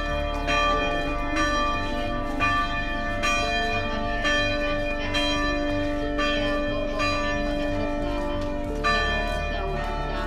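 Church bells ringing, struck about once a second, each strike ringing on over a steady held tone that stops near the end.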